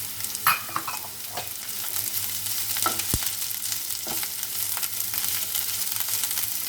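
Onion, mushroom, capsicum and cabbage sizzling in hot oil in a non-stick pan, being stirred, with a few short scrapes and knocks against the pan, the sharpest about half a second in.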